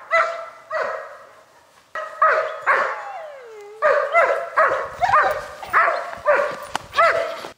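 German Shepherd protection dog barking hard at the decoy: two barks, a pause of about a second, then a quick run of about ten more, roughly two a second, each bark dropping in pitch at its end.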